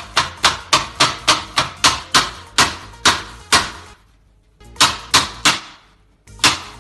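A rapid series of sharp knocking strikes, about three to four a second, like a knife chopping on a board. They pause briefly a little past the middle, then come back with three more strikes and a couple near the end.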